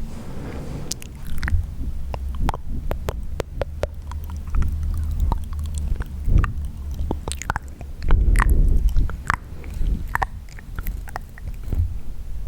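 Wet mouth sounds: irregular tongue clicks and lip smacks, many in quick succession over a low rumble.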